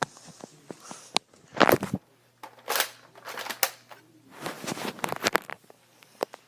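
Nerf Rampage pump-action foam-dart blaster being primed and fired: plastic clicks and short sliding pump strokes, several in a row about a second apart.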